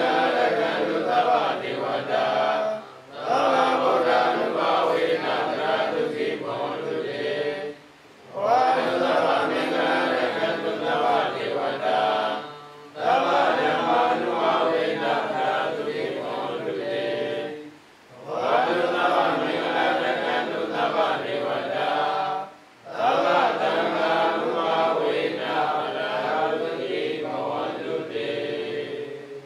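A group of Buddhist monks chanting together in unison. The chant comes in phrases of about five seconds, each broken by a short pause for breath.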